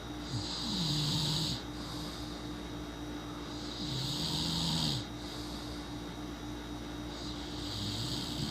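A sleeping person snoring: three snores about three seconds apart, each a low tone that slides down and then holds, with a breathy hiss over it.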